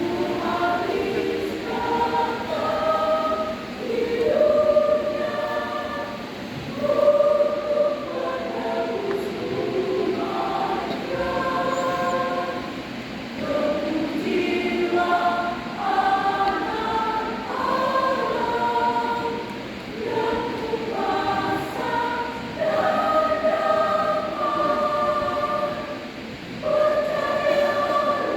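Church choir singing a hymn in several voice parts, in phrases with short breaths between them.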